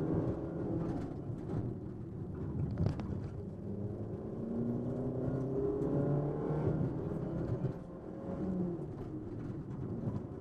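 Ford Fiesta rally car's engine heard from inside the cabin, its revs repeatedly climbing and dropping with gear changes under hard driving, over steady road and tyre noise. A sharp knock about three seconds in.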